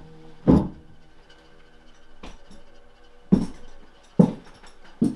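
A heavy thump near the start, then slow, heavy boot footsteps about a second apart, three of them in the second half. Quiet background music with held notes runs underneath.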